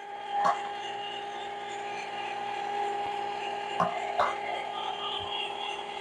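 Countertop ice cream maker's motor running with a steady hum, churning ice cream that has reached its finished, thick consistency. A few light clicks are heard, at about half a second and again around four seconds in.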